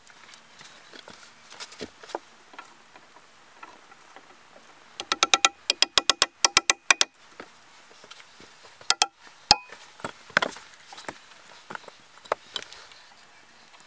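Metal hand tool working on a log: a quick run of about a dozen sharp, ringing metallic clicks over a couple of seconds, then a few more single clicks and lighter knocks.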